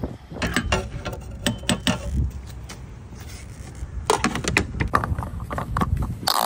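Clicks and clunks of a gas pump nozzle being handled and hung back on the pump and of a vehicle's fuel cap being closed, ending in a sharp knock, over a low wind rumble.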